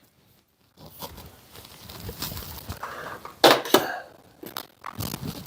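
Metal tooling being handled at a mini lathe with the spindle stopped: soft shuffling and scraping with a few sharp clicks, the loudest two close together a little past the middle.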